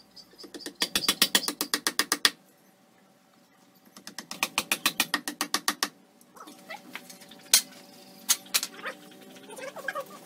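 A ratcheting tool fastening a beam to the top of a wooden post: two bursts of rapid, even clicking, about ten clicks a second, each lasting a second and a half to two seconds. A few sharp single knocks follow in the second half.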